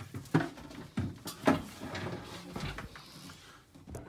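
Several sharp knocks and bumps with rustling in between, the loudest about a second and a half in: a person moving about a cramped boat engine room with a phone in hand, knocking against surfaces and handling the phone.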